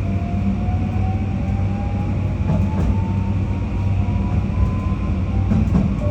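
821 series electric multiple unit running, heard from the cab: steady running rumble and hum, with the traction motors' electronic whine climbing slowly in pitch as the train gathers speed. A couple of faint clicks come in the middle.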